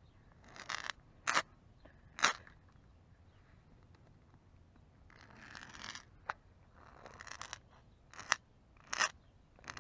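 A handheld lighter being struck over and over, failing to light: about five sharp clicks spread through, with a few short rasping bursts in between.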